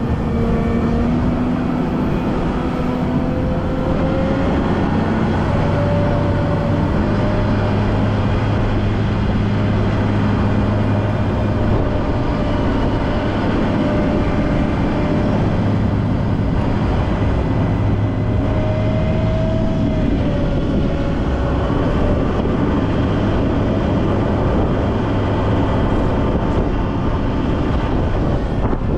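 Volvo L90F wheel loader's diesel engine running steadily under working load, its note rising and falling slightly as the machine works.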